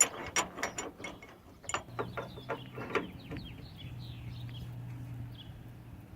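Socket ratchet wrench clicking in short strokes as a freshly thread-locked bolt is snugged up; the clicks are strongest over the first three seconds, then thin out to faint ticks.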